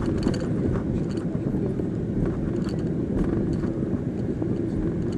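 Steady engine and road noise heard inside a moving car, a low rumble with a few faint, irregular ticks.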